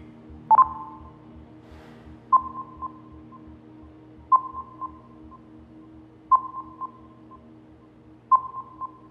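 Incoming-call ringtone: a short electronic chime ringing about every two seconds, five times, each ping trailed by a few quicker, fainter repeats, over a low steady hum.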